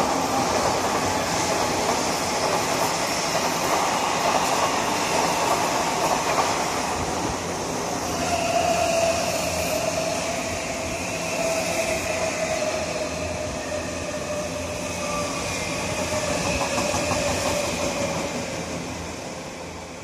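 Odakyu 1000 series commuter train, then an Odakyu Romancecar EXE express, running past at speed: a steady rumble of wheels on rails. About eight seconds in, a whine joins it and slowly sinks in pitch, and the noise fades near the end as the EXE draws away.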